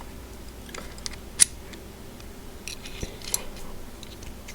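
A few small, sharp clicks as the hole saw arbor and its Allen key are handled. The loudest comes about a second and a half in, with a smaller cluster around three seconds in.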